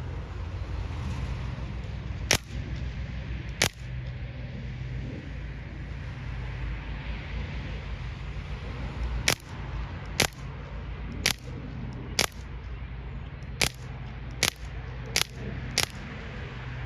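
Crosman 1077 CO2 pellet rifle firing ten sharp shots: two about a second and a half apart, then after a pause eight more at roughly one a second, as fast as the semi-auto trigger is pulled. A steady low rumble runs beneath.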